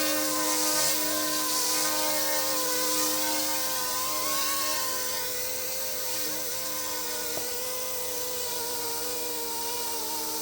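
Small electric RC scale helicopter with brushless motors, its rotors whining steadily at a slightly wavering pitch as it comes down to land in GPS auto mode. The whine eases a little in loudness partway through.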